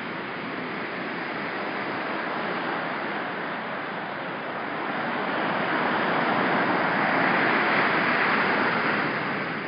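Ocean surf washing on the beach, a steady rush that swells to its loudest about six to eight seconds in and then eases.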